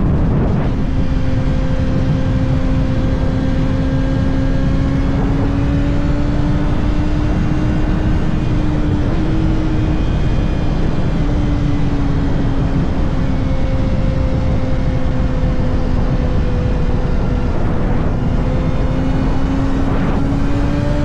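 Kawasaki ZX-6R's 636 cc inline-four engine at a steady cruise, its note drifting slowly up and down with small throttle changes, over a low rushing noise.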